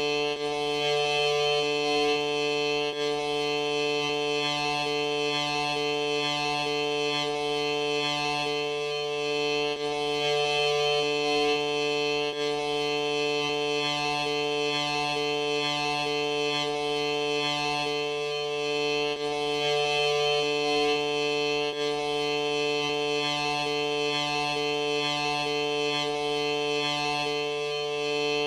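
A steady, music-like drone of sustained held tones, with one lower note dropping out briefly about every nine seconds.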